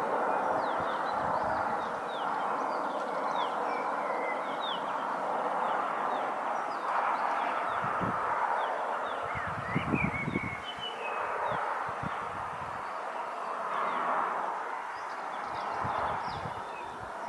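Small birds chirping repeatedly over a steady rushing noise, with low buffeting thumps about eight and ten seconds in, like wind gusts on the microphone.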